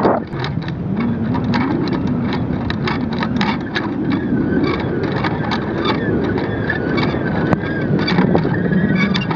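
Wind noise and rattling on a kite-borne aerial camera: a steady rush with many sharp clicks, and a faint wavering whine from about halfway on.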